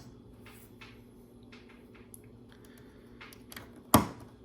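Small plastic LEGO pieces clicking faintly as they are handled, then one sharp snap near the end as a piece is pressed into place on the build.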